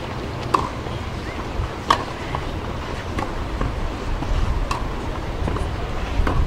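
Tennis ball struck back and forth by rackets in a baseline rally, a sharp pock about every second and a half.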